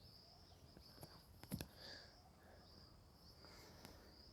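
Near silence, with a faint high chirring that keeps recurring, and a couple of soft clicks about a second and a half in.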